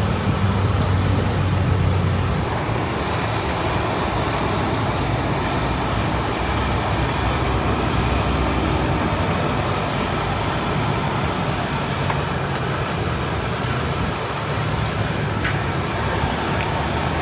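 Patongko (Thai fried dough sticks) deep-frying in large woks of hot oil: a steady sizzle, with a low rumble underneath.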